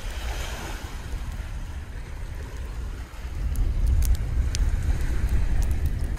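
Wind rumbling on the microphone over the wash of sea surf, the rumble growing stronger from about halfway. A few sharp crackles from the wood campfire come around four seconds in.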